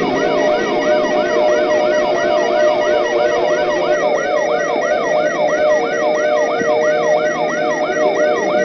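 Electronic siren in a fast yelp, sweeping up and down about three times a second over steady droning tones. A second, faster and higher warble joins about halfway through.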